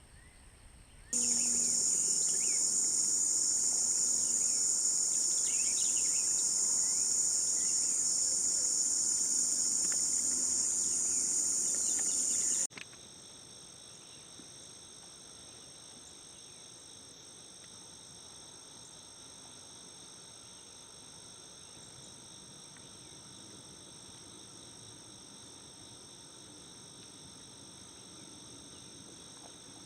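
Insect chorus: a loud, steady, high-pitched drone starts abruptly about a second in and cuts off suddenly about 13 seconds in. A quieter chorus of several steady high trilling tones follows.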